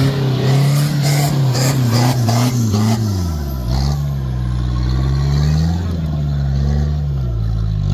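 Toyota 4x4's diesel engine revving hard under load as it claws up a muddy rut with its wheels spinning. The revs drop sharply about three seconds in, then climb again. Knocks and clatter in the first few seconds.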